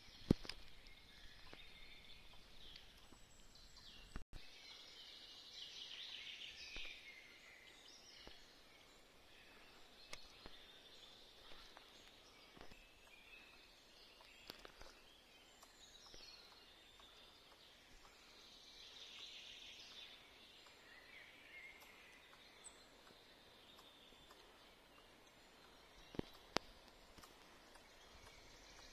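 Faint woodland ambience with distant birds calling now and then, and a few sharp clicks, two of them close together about 26 seconds in.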